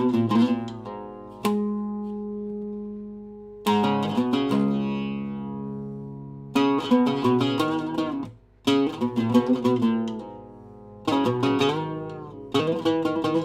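Solo Syrian-style oud with a cedar top and walnut back, played with a plectrum: quick runs of plucked notes broken by single notes left to ring and die away, about a second and a half in, around four seconds in, and again near eleven seconds.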